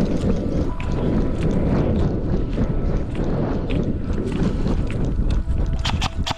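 Wind buffeting a body-worn camera's microphone during a run across grass, with scattered knocks from footfalls and gear. Near the end a steady tone sets in, then a fast even run of sharp clicks, about seven a second.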